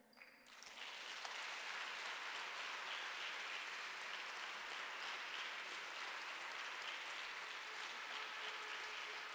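Audience applauding, the clapping building within the first second and then holding steady.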